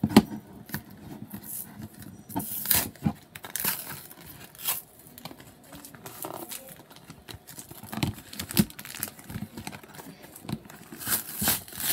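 Hands tearing and crinkling the cardboard and plastic packaging of a Pokémon trading card box, with irregular rustles and crackles, loudest about two to three seconds in and again near the end.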